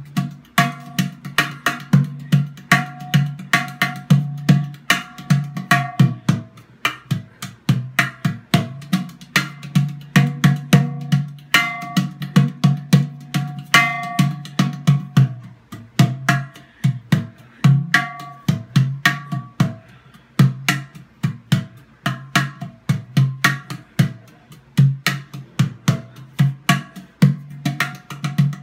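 PANArt Hang Gudu, a steel sound sculpture, played with bare hands in a fast, continuous drumming pattern. A deep bass tone sounds under a ringing higher steel note with each run of strikes.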